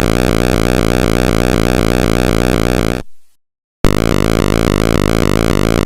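Loud electronic synthesizer drone with a fast, even pulse. It cuts off for under a second about three seconds in, then a similar pulsing drone resumes.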